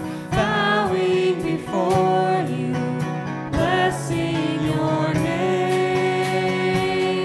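A worship song: voices singing a melody over instrumental accompaniment.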